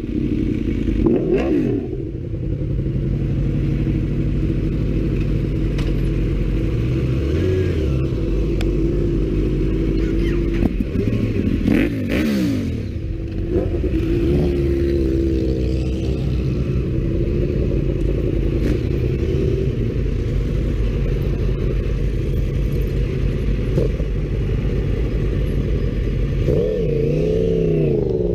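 Motorcycle engines idling close by, the camera bike's among them, with several throttle blips that rise and fall in pitch, the largest about 12 seconds in and again near the end as the bikes pull away at low speed.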